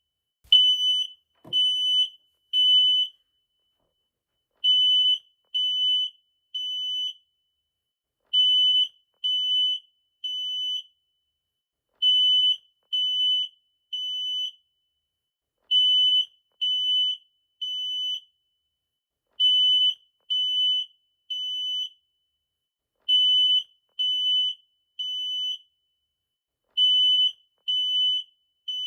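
Smoke detector alarm sounding a loud, high-pitched beep in repeating groups of three, each beep about half a second long with a pause of about a second and a half between groups: the temporal-three pattern that signals fire and evacuation.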